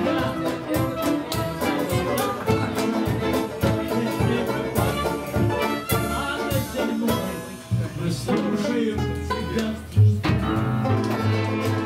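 Live band music with a steady rhythmic beat, an upright double bass among the instruments. There is a louder low bass note about ten seconds in.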